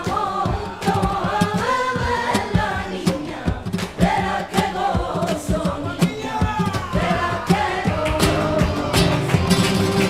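Music: a group of voices singing a villancico (Spanish Christmas carol), over a steady sharp rhythmic beat.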